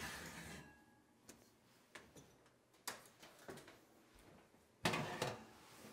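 Kitchen oven door and metal oven rack being handled: a few light knocks and clicks, then a louder, sharper knock with a short rattle about five seconds in.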